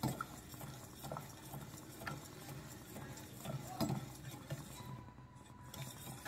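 Wire whisk stirring milk in a stainless steel pot, with soft scraping and light, irregular taps of the wires against the metal, as a cornflour slurry is whisked in to thicken the milk.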